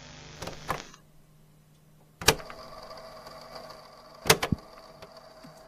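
VHS video-player sound effect: a short burst of tape static, then a sharp mechanical clunk about two seconds in. A steady whirring hum follows, and a second rattle of clunks comes about four seconds in.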